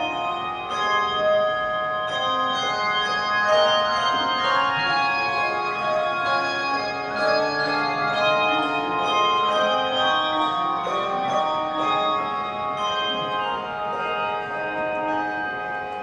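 Handbell choir ringing a gospel tune on bronze handbells: many clear pitched bell notes struck in turn, each ringing on and overlapping the next.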